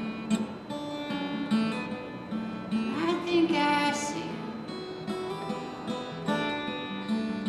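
Acoustic guitar being strummed and picked in a live solo song, with a sung line about three seconds in.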